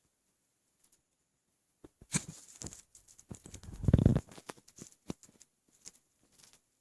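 Close-miked belly and hiccup sounds from a stomach bloated with milk: a sharp jolt about two seconds in, then a louder low rumble around four seconds, with small clicks and rubbing between.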